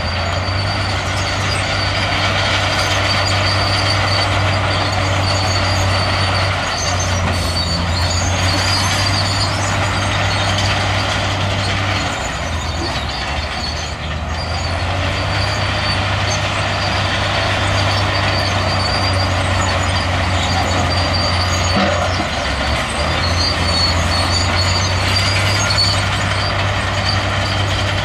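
Heavy diesel engine of earthmoving machinery, a bulldozer or dump truck, running steadily. Its low engine note drops away for a couple of seconds about twelve seconds in and dips again around twenty-two seconds, under a constant rough mechanical noise.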